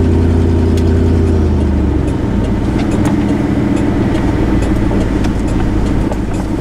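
Car running on the road: a steady engine hum with road rumble. The engine note changes about two seconds in, leaving a rougher, even rumble.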